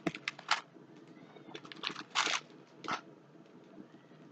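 Plastic packaging crinkling and rustling as it is handled: a quick cluster of crackles at the start, then a longer rustle about two seconds in and a short one near the three-second mark.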